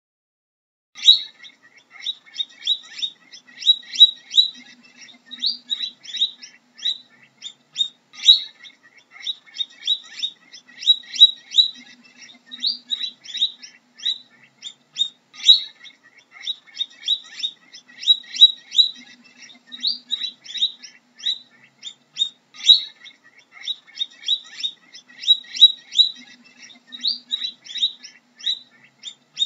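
Guinea pig squeaking: rapid runs of short, high-pitched squeaks that start about a second in. The runs come in clusters that recur about every seven seconds.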